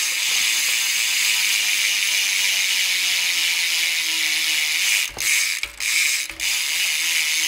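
BMX rear hub (Primo Remix rear wheel) freewheeling: the pawls ratchet in a rapid, steady, loud clicking buzz. It breaks off briefly three times about five to six and a half seconds in, then carries on.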